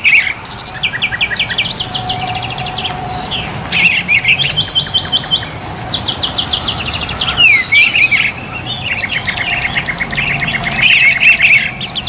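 Caged small songbirds chirping and trilling together, with fast runs of repeated high notes overlapping one another.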